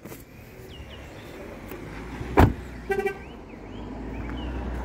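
A Vauxhall car's door is slammed shut, then its horn gives a short double chirp as the car is locked with the key fob. A low rumble runs underneath.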